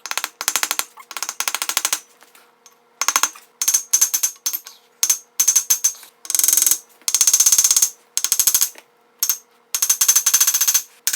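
A ratchet wrench clicking in quick bursts, stroke after stroke, working a tight fastener loose on a VW Type 1 engine case.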